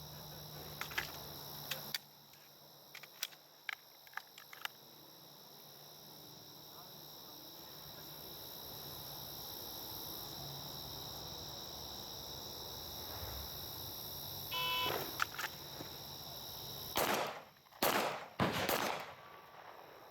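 A shot-timer beep, then three handgun shots in quick succession near the end, about a second apart, fired as a timed three-round string at 15 yards. Steady insect chirring runs underneath.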